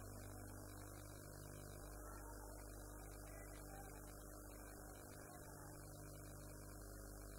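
Steady low electrical mains hum with a faint even hiss, and no distinct event.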